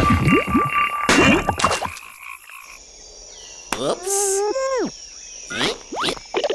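Cartoon sound effects: a flurry of quick rising swoops and clicks in the first two seconds, then about four seconds in a wavering, pitched animal-like call that bends down at its end, followed by a few more quick rising swoops.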